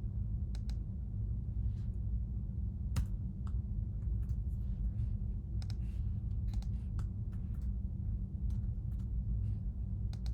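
Sparse, irregular computer keystrokes and clicks, a few separate taps at a time with pauses between, over a steady low background hum.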